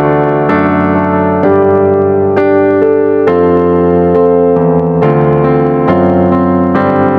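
Keyboard playing in a piano voice, striking a new chord about once a second: a slow hymn accompaniment.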